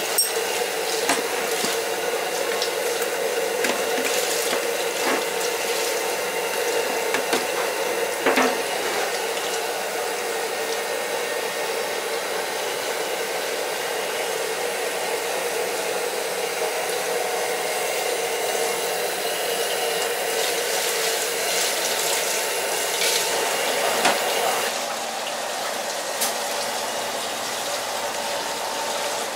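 Steady rush of running water with a steady hum beneath it and a few clanks; about 25 seconds in the rush drops to a softer, different wash.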